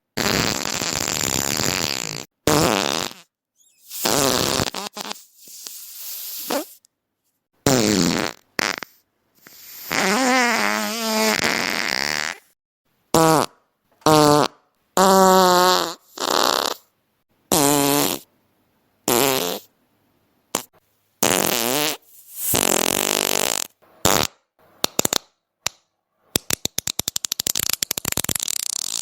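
A series of fart sound effects, one after another with short silences between them. Some are long and pitched with a wavering tone, others are airy and noisy, and near the end comes a fast sputtering run of short pops.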